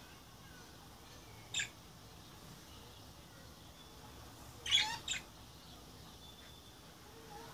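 Budgerigars chirping: one short chirp about one and a half seconds in, then a quick cluster of louder chirps about five seconds in.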